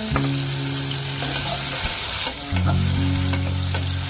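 Shiitake mushrooms sautéing in oil with ginger, garlic and shallot in a saucepan, sizzling steadily as a wooden spatula stirs them, with a few light knocks of the spatula against the pan.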